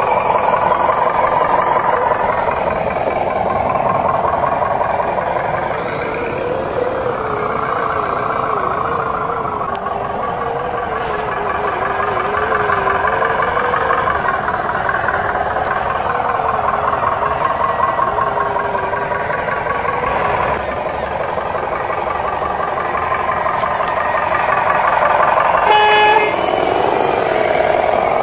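Miniature RC dump truck running, its drive making a steady whine that wavers in pitch with the throttle. About two seconds before the end, a short horn toot.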